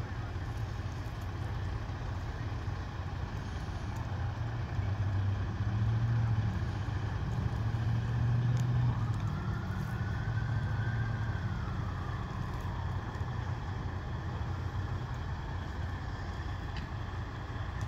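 Low, steady rumble of vehicle engines idling at the roadside, growing louder in the middle. A faint whine rises, holds and then falls away partway through.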